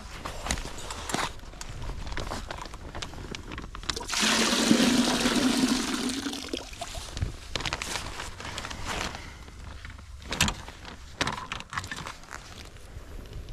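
Maple sap poured from a plastic sap-collection bag into a bucket: a splashing gush about four seconds in that lasts about three seconds. Before and after it come sharp clicks and rustles of handling the bag and its metal holder.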